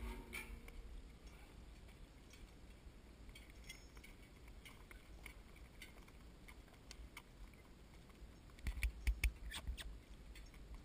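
Hooves of a driven animal walking on a dirt track, with scattered light clicks and knocks from the harness and cart. A run of louder knocks with low thumps comes about nine seconds in.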